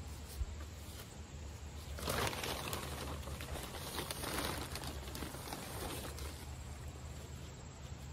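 Rustling and gritty scraping as potting mix is scooped from its plastic bag and spread by hand in a planter tier, starting about two seconds in and dying away about four seconds later.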